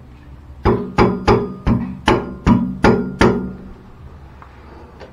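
Hammer blows ringing on metal: about eight sharp strikes in quick succession, roughly three a second, each leaving a short metallic ring at the same pitches, while the concrete around the shower valve is chipped away.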